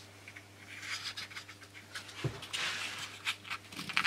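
Small balsa plane shaving a model glider wing's balsa trailing edge in several short rasping strokes. The trailing edge wood is hard and doesn't plane nicely. A soft knock comes about two seconds in.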